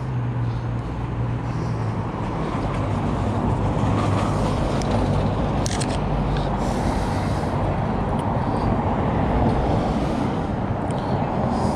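Motor vehicle noise: a steady low engine hum with road and traffic rumble.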